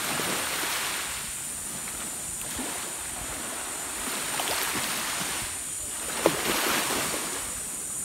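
Shallow seawater swishing and lapping, in slow swells, with wind rumbling on the microphone. One short click about six seconds in.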